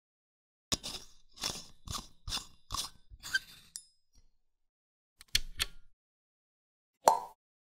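Foley for a glass light bulb being screwed into a socket: a run of short squeaky, clinking turns, about two a second. This is followed by a pair of clicks about five seconds in as the bulb is switched on, and one short blip near the end.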